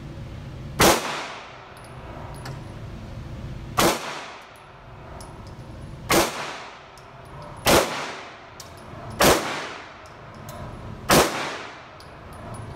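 Six handgun shots fired one at a time, spaced about one and a half to three seconds apart, each echoing briefly off the walls of an indoor shooting range.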